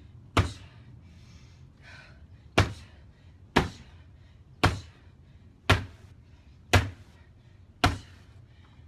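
Two-handed downward punches slamming onto a padded punching target on the floor, a sharp thud roughly once a second, seven in all, with a longer pause after the first.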